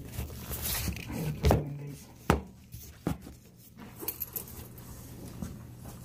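Handling noise close to the microphone: cloth rustling, then a few sharp knocks and lighter clicks.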